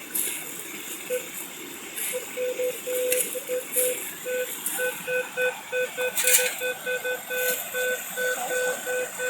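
Metal detector beeping, a steady on-off tone repeating about three times a second, starting about a second in, with scraping and rustling as the ground is worked.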